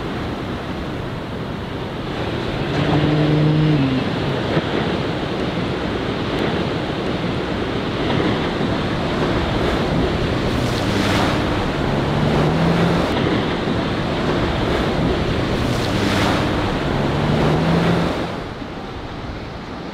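Surf washing and breaking, with wind on the microphone. A motorboat's engine comes up over it three times, in short bursts that rise in pitch as the boat climbs the waves.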